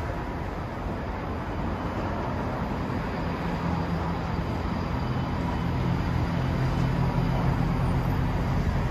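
Road traffic at a city junction: a steady engine hum from passing vehicles, growing gradually louder from about three seconds in.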